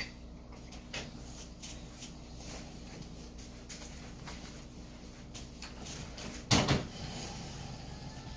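Light knocks and cloth rustling as a bedridden patient is rolled onto his side and wiped, with one heavy thump about six and a half seconds in.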